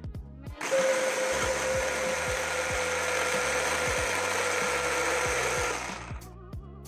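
Hand blender's electric motor driving its chopper bowl, grinding ground roasted peanuts into peanut butter. It starts about a second in, runs with a steady whine, and stops about a second before the end.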